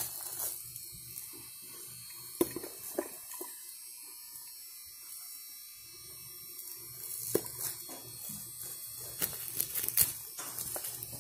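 Plastic food containers, lids and a bottle being handled and set down, giving a few sharp knocks and clicks over a faint steady hiss.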